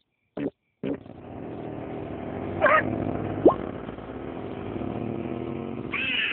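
Cartoon sound effects: three short blips, then from about a second in a steady, engine-like buzzing drone, with a brief squeal and a quick rising whistle partway through.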